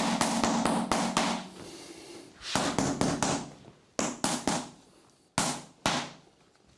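Handheld percussion massager run in short bursts: rapid tapping over a low motor hum. The first burst lasts over a second and four shorter ones follow, the last two brief.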